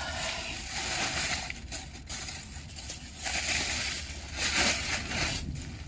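Close-up crunching and chewing of crackers with summer sausage, irregular crackly bites with a couple of longer hissy surges about three and four and a half seconds in.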